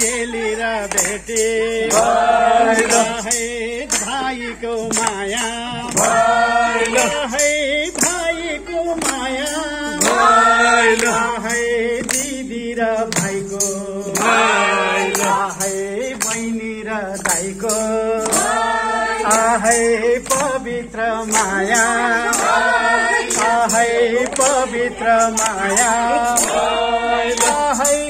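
Group singing of a festive song, with a man's voice prominent, over a steady beat of percussion.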